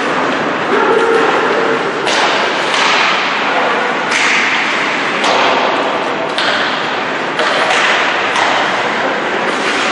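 Ice hockey play on an indoor rink: a steady wash of skates on the ice, broken about once a second by sharp knocks of sticks and puck.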